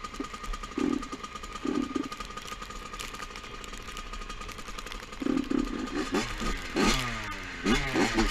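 Small two-stroke dirt bike engine idling, blipped twice about a second apart, then revved repeatedly and more loudly in the second half.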